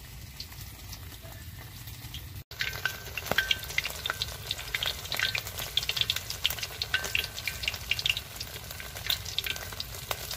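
A chicken drumstick deep-frying in hot oil in a wok, sizzling with a steady hiss and many sharp crackles and pops. After a brief dropout about two and a half seconds in, the crackling is louder.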